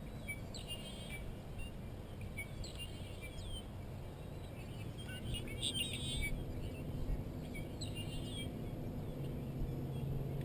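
Small songbirds singing: four short, trilling song phrases, two to three seconds apart, over a low steady hum.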